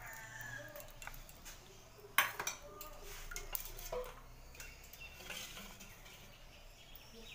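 A kitchen utensil and oil brush working against a frying pan: faint scraping with scattered clicks, one sharp clink about two seconds in and a few lighter ones after it.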